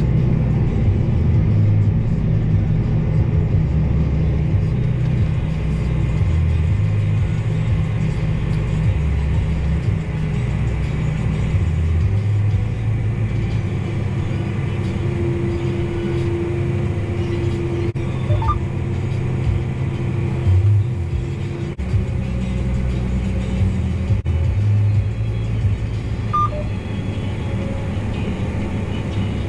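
Steady low rumble of a tractor engine heard from inside the cab as it pulls a grain cart, with music playing over it.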